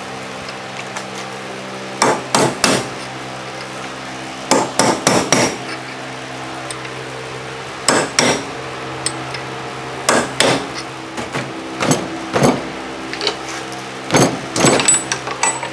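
A hammer striking a steel chisel driven in behind the old bearing race of a Kuhn GMD500 disc mower spindle: sharp metal-on-metal blows in quick bunches of two to six, with pauses of a second or two between.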